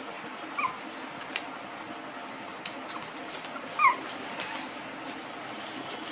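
Young puppies whimpering: two short squeaky cries about three seconds apart, the second louder, over steady background noise.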